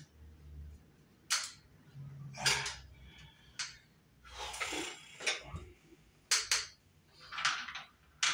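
Scattered clicks, clinks and short rustles of hand work with a screwdriver and small metal parts at a ceiling electrical box, about eight separate sounds with gaps between them.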